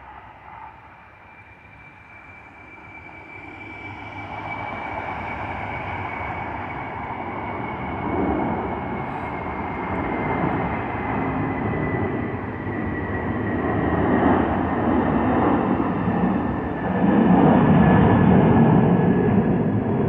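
Jet airliner passing low overhead: a high engine whine that slowly falls in pitch while the engine roar builds, loudest near the end.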